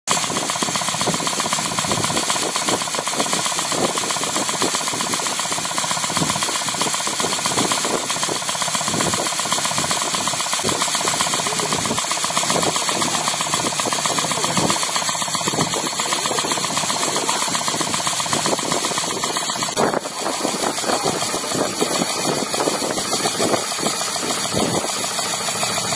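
Hydraulic pump unit of a 10-ton tripod jack running steadily while the ram extends and lifts: a dense mechanical whir with hiss and rapid fine pulsing. The sound dips briefly and changes character about twenty seconds in.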